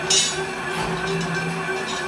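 A sharp metallic clink just after the start, then a few fainter clinks, as the steel strip coil on the decoiler is handled, over a steady drone of workshop machinery.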